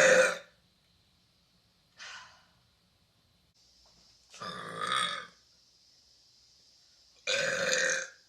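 A woman burping four times in a row: a loud burp right at the start, a short faint one about two seconds in, a longer one near the middle, and another loud one near the end.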